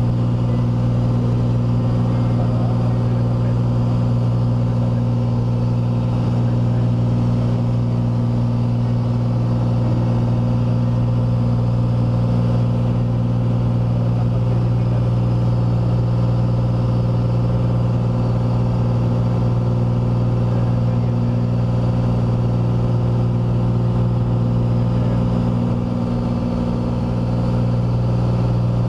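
Single-engine propeller aircraft's engine and propeller droning steadily in cruise, heard from inside the cockpit, with a slight dip in level near the end.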